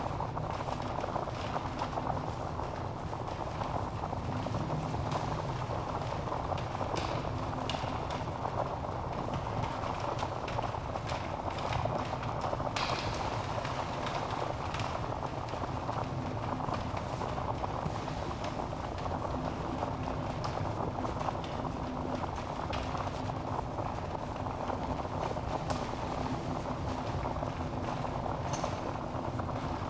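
Wood fire burning in a fireplace: a steady low rush of flames with frequent small crackles and pops from the burning logs.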